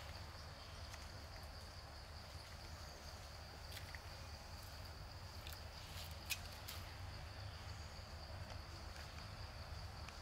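Faint steady insect drone on one high note, over a low outdoor rumble, with a few soft clicks around the middle.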